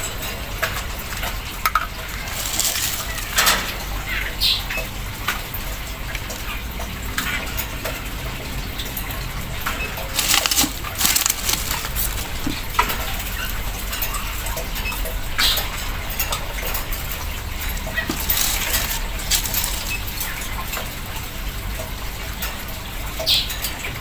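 Scissors snipping crickets into a small plastic cup, heard as scattered sharp clicks and rustles at irregular intervals over a steady low background hum.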